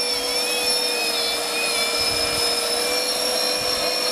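Electric ducted fans of the SUXR RC VTOL jet model running at hover power: a steady high whine over a strong rush of air, with a few of the higher tones wavering slightly in pitch during the first second and a half.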